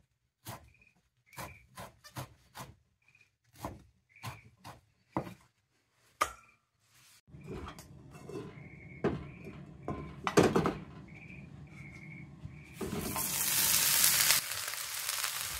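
A kitchen knife chopping butterbur buds on a wooden cutting board, a string of sharp, unevenly spaced strokes. After that come a steady low rumble and a few knocks of pan and bowl. About 13 seconds in, the chopped buds are tipped into hot oil in a frying pan and start sizzling loudly.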